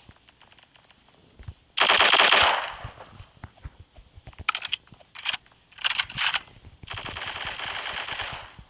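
Automatic gunfire: a loud burst of rapid fire about two seconds in, a few short bursts around the middle, and a longer, quieter burst near the end.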